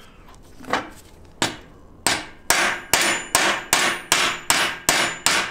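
Small sledgehammer striking a socket set on an LS rocker arm's inner bearing race, driving out the stock trunnion race. Three spaced taps, then a steady run of about eight sharp, ringing metal blows, a little over two a second.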